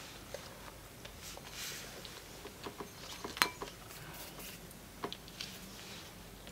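Faint biting and chewing of a smoked-salmon bagel, with soft crackles and a few small clicks, the loudest about three and a half seconds in.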